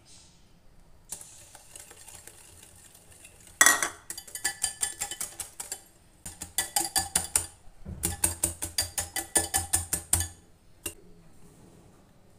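Wire whisk beating eggs and oil in a glass bowl. Its wires clink against the glass about five or six times a second, in three quick spells that begin with one sharp clink.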